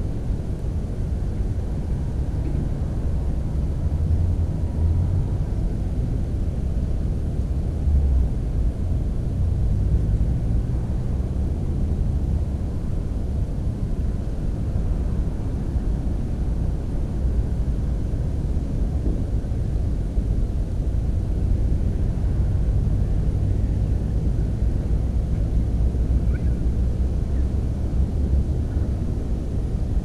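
Wind buffeting the microphone: a low, steady rumble that swells briefly about four and eight seconds in.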